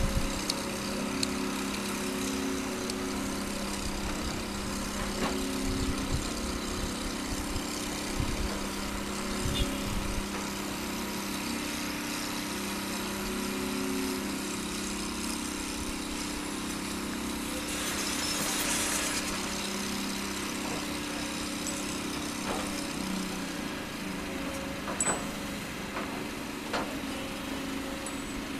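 Kobelco SK200 hydraulic excavator's diesel engine running steadily as it digs and swings, with scattered knocks from the bucket and a brief hiss about two-thirds through.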